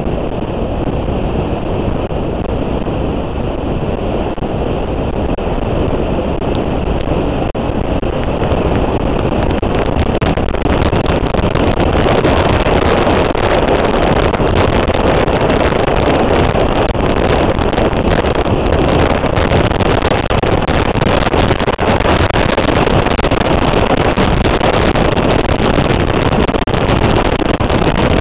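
Riding noise on a moving motorcycle: wind rushing over the microphone with the motorcycle's engine under it, a steady roar that grows louder about ten seconds in.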